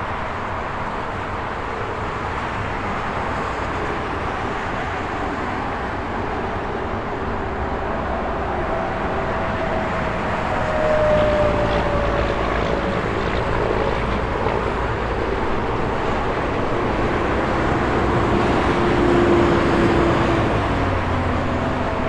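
Highway traffic: a continuous rush of tyre and engine noise, with vehicles passing one after another. Passing vehicles leave faint whines that drop in pitch as they go by, with louder passes about eleven and nineteen seconds in.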